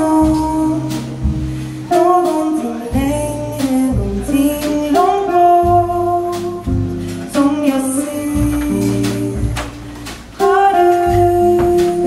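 Live jazz quartet: a woman singing long held melody notes over guitar, plucked double bass and a drum kit with cymbals.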